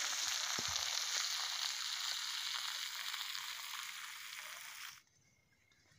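Meat frying in a pan over a wood fire: a steady sizzle that slowly fades and cuts off suddenly about five seconds in.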